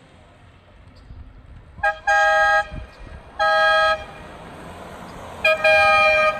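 Aftermarket compressor-fed dual-trumpet air horn on a Honda CR-V, sounded from the steering-wheel horn button in three blasts of about half a second each; the first and last are each led by a quick tap. Two steady tones sound together in each blast.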